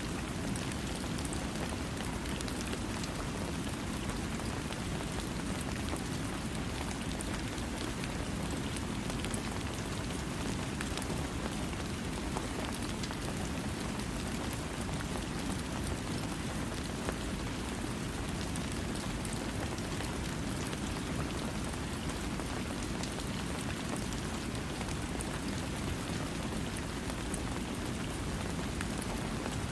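Steady rain falling on a surface, an even hiss with scattered individual drop ticks and no thunder.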